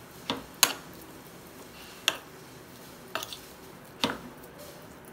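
Metal spoon clinking and scraping against a ceramic plate while mixing mashed potatoes, about five irregular clinks.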